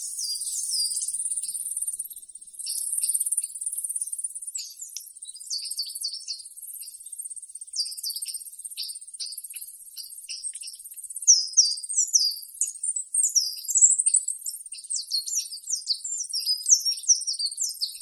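Wild birds calling in quick series of short, high, downward-sliding chirps, which become more frequent and louder in the second half, over a steady high-pitched insect drone.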